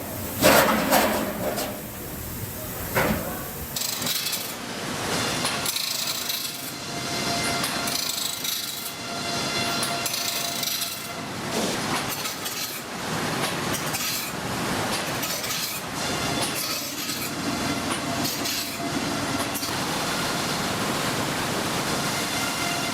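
Sawmill machinery running: a continuous clattering din with repeated knocks and clanks, the loudest about half a second in.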